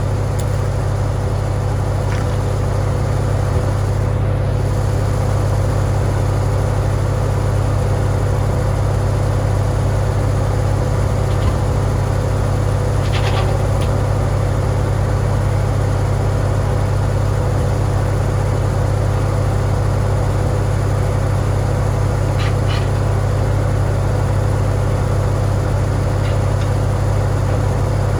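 Farmall tractor engine running at a steady speed, a constant low drone with an even hum over it.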